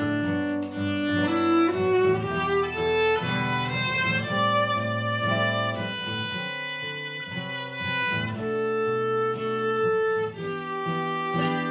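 Acoustic cover of a jazz standard: a violin plays a slow, sustained melody over plucked acoustic guitar accompaniment.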